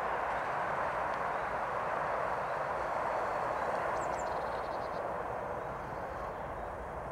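Steady roar of distant motorway traffic, an even rushing noise with no single vehicle standing out. A couple of faint high bird chirps come about four seconds in.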